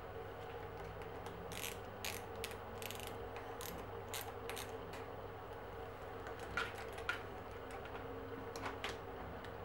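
Small hand ratchet driver with a hex bit clicking as a bicycle brake lever's clamp bolt is tightened on the handlebar: a run of quick clicks, about two a second, then a few more, in pairs, later on.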